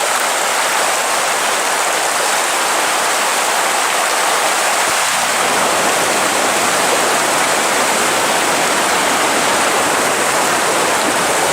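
Floodwater rushing in a steady, loud, unbroken roar of water.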